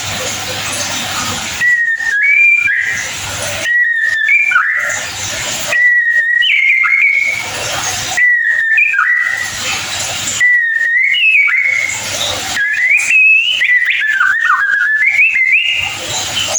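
White-rumped shama singing: six short whistled phrases about every two seconds, each starting on a clear held note and then jumping and warbling higher, the last one longer and more varied.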